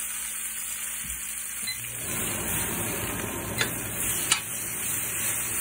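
Baby bok choy sizzling in hot oil in a cast-iron skillet while it is turned with metal tongs. The sizzle grows fuller about two seconds in, and the tongs click sharply against the pan twice a little past halfway.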